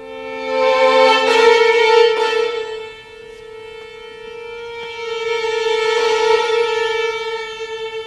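Solo violin holding one long bowed note that swells loud twice, with a lower note sounding beneath it for about the first second.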